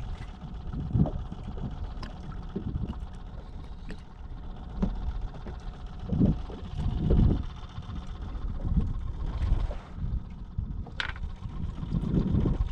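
Water slapping and lapping against a small fishing boat's hull, with wind buffeting the microphone in uneven gusts. One sharp knock about eleven seconds in.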